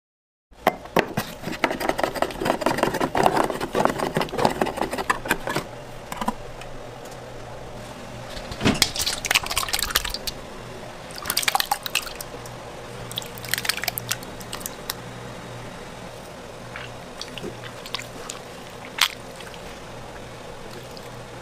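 Thick tomato sauce being stirred and squished in a stainless steel bowl: wet squelching and sloshing, busiest in the first few seconds and then in scattered bursts, over a low steady hum.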